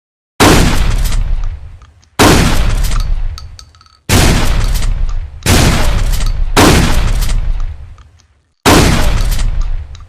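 Trench shotgun fired six times at uneven intervals of one to two seconds, each blast sharp and followed by a long echoing tail.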